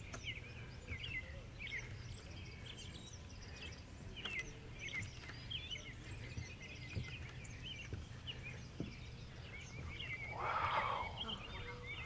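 Small birds chirping and twittering again and again, over a low steady rumble. About ten seconds in there is a brief rush of noise lasting about a second.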